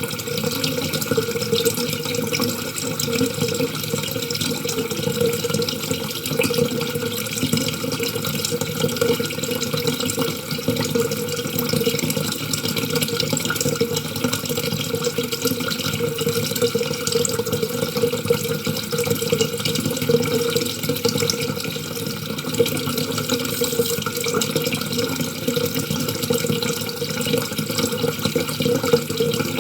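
Water running in a steady, unbroken stream.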